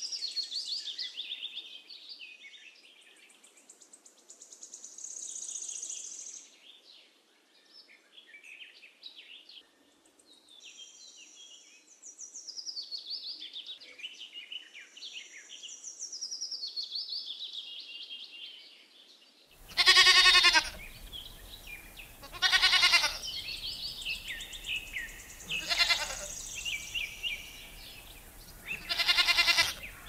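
Small birds chirping and trilling. About two-thirds of the way through, goats start bleating: four loud bleats a few seconds apart, the first the loudest.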